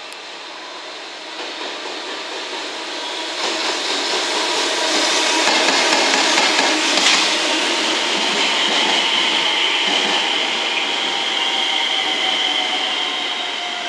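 A JR West 227 series electric train passes close on the near track, with an EF210 electric locomotive and its two container wagons going by behind it. The rumble of wheels and motors builds to its loudest about seven seconds in, then a steady high whine runs through the later part.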